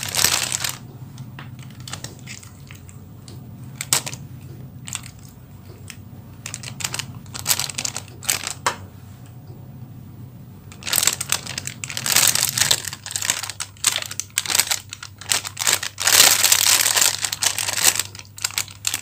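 A plastic bag worn as a glove crinkles and rustles as the hands squeeze and roll a soft macaroni mixture into balls. The crinkling is sparse at first and gets denser and louder about halfway through.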